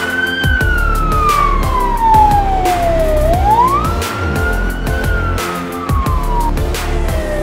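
Police siren wailing: each cycle climbs quickly, then falls slowly, repeating about every three and a half seconds. It plays over background music with a steady beat.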